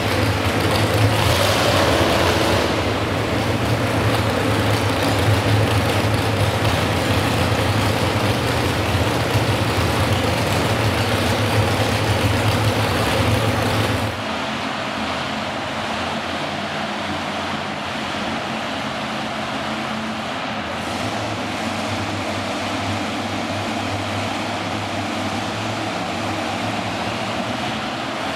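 Modified pulling tractor's engine idling loudly and steadily, over the hum of an indoor arena. About halfway it cuts to another modified tractor's engine idling more quietly at the starting line.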